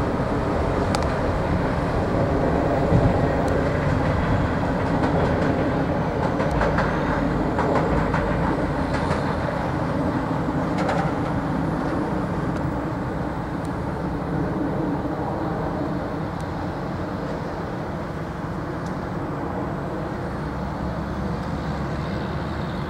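Rail work truck and its hopper cars rolling along the track: a steady rumble of wheels on rail with occasional sharp clicks, growing slightly fainter in the second half as it moves away.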